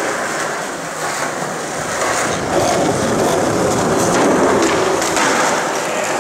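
Skateboard wheels rolling over a smooth concrete floor, a steady rolling noise that swells a little about halfway through.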